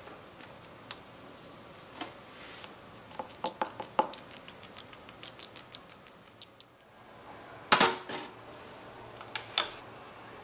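Tiny metal fork clinking against a miniature ceramic bowl as a raw egg is beaten, a quick run of light taps. Near the end comes a louder clatter of small dishes, then a couple of clicks.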